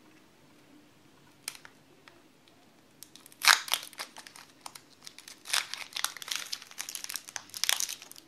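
Foil wrapper of a Pokémon trading-card booster pack crinkling in the hands as it is worked at to get it open. Mostly quiet at first apart from one tick about a second and a half in, then steady crinkling from about three and a half seconds on.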